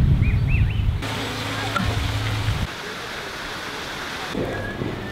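Wind buffeting the microphone on a moving bicycle, a heavy low rumble, with small birds chirping over it. About a second in, the sound cuts abruptly to a steadier outdoor hiss with a faint low hum, which drops quieter again near the middle.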